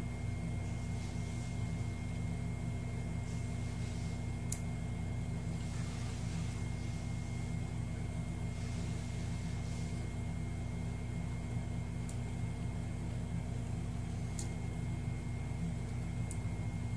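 A steady low machine hum with a thin high whine over it, and a few faint sharp clicks here and there.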